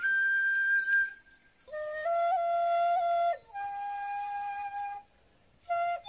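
Shinobue (Japanese bamboo transverse flute) playing a slow melody of long held notes with short grace-note flicks, a high note at first, then lower ones. The playing breaks off twice briefly.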